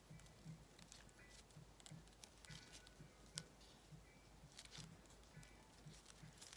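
Near silence, with faint rustles and small clicks of a ribbon being wound around a flower stem and handled between the fingers; one slightly sharper click about three and a half seconds in.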